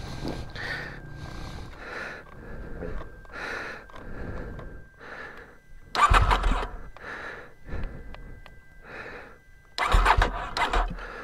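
Heavy, rhythmic panting of an out-of-breath rider, about one breath a second. It is broken twice, about six seconds in and near the end, by a brief burst of the KTM 790 Adventure R's parallel-twin engine being cranked, which does not catch: the engine is vapor-locked and the battery weak.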